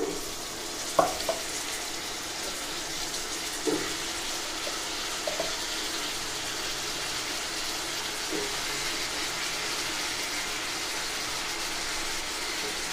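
Steady sizzling of an onion and tomato base frying in a pan after pieces of elephant foot yam have been added. A few soft knocks come through the sizzle, the first about a second in.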